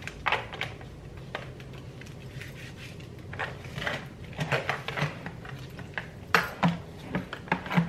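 Hands rubbing a brown-sugar seasoning into raw baby back ribs in a bowl: irregular handling knocks and clicks as the meat is worked and lifted, with bangle bracelets and rings clinking against the bowl and each other.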